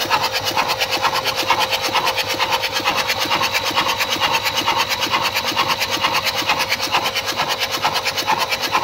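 Starter motor cranking a Toyota common-rail diesel engine steadily, with an even whine and a fast regular chug from the compression strokes, while fuel from the lifted-out injectors sprays into mist.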